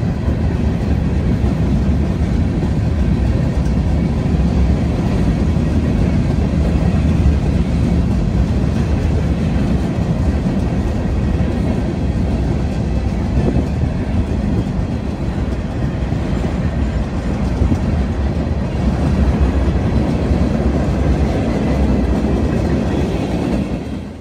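Union Pacific freight train of covered hopper cars rolling past a grade crossing, a steady heavy rumble of wheels on rail that cuts off suddenly at the very end.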